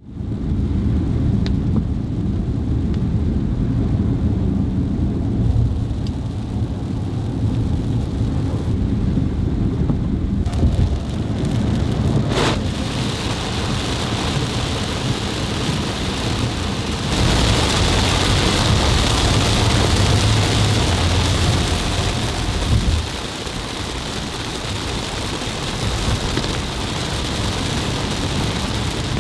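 Heavy downpour with deep rolling thunder: a low rumble dominates the first ten seconds or so. A single sharp click comes about twelve seconds in, after which the hiss of rain grows brighter and louder, strongest from about seventeen seconds.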